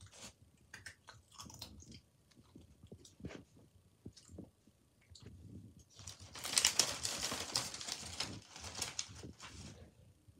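Scattered soft clicks and rustles, then a denser stretch of rustling from about six seconds in to about nine and a half seconds.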